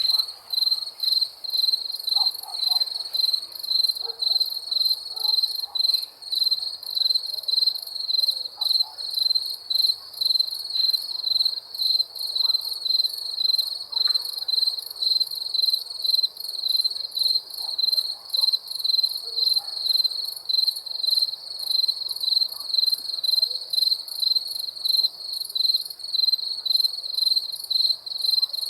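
Crickets chirping: a steady, even run of high-pitched chirps, about two a second.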